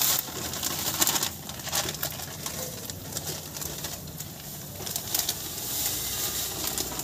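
Desiccated coconut powder poured from plastic packets into hot ghee in a large iron kadhai: a steady hiss of the ghee sizzling, with crackling and rustling from the packets.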